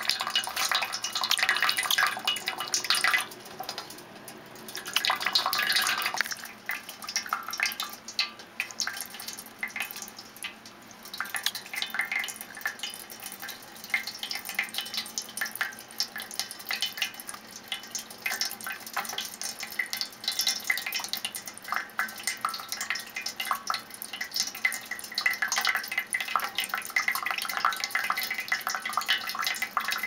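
Water splashing and dripping in a shallow metal baking tray as a budgerigar bathes in it, ruffling and shaking its wet feathers: an irregular patter of small splashes, with a quieter stretch about a third of the way in.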